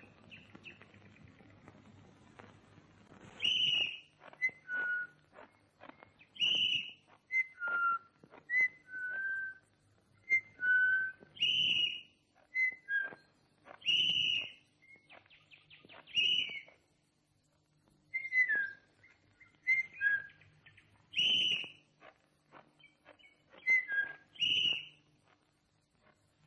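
Bird-like whistled calls: short chirps and brief high notes repeated every second or two, some sliding down in pitch, made to imitate a bird.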